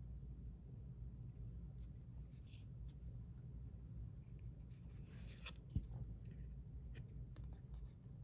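Faint slides and rustles of Yu-Gi-Oh trading cards being leafed through by hand, a few scattered scrapes of card against card, with one soft knock about six seconds in, over a low steady hum.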